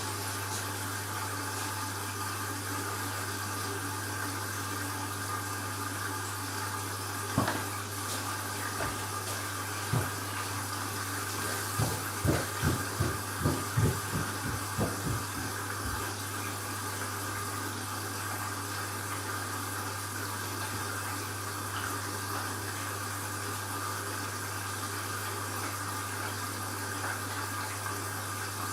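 Candy washing machine filling with water at the start of an empty bleaching cycle: a steady rush of water with a mains hum from the inlet valve. Partway through comes a run of about a dozen sharp knocks.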